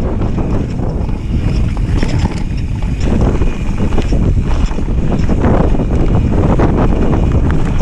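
Wind buffeting the microphone over the constant rumble and rattle of a mountain bike riding fast down a rough dirt trail, with many small knocks from the tyres and frame over roots and stones.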